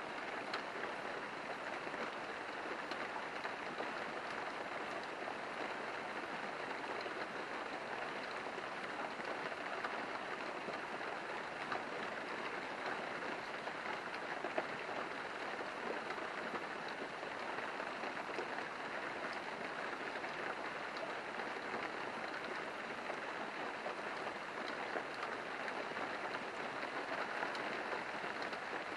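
Steady rain falling: an even hiss with scattered louder drips ticking through it.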